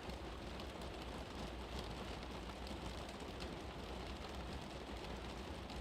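Steady, even background hiss with a low rumble underneath, with no speech or tune on top.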